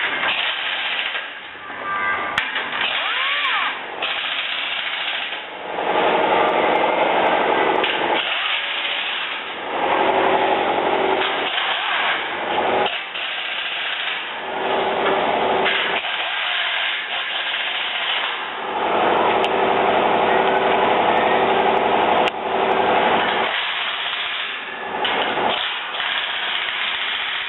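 Power driver running in repeated bursts of a few seconds each, tightening the bolts that fasten the braces of a steel pallet rack upright frame.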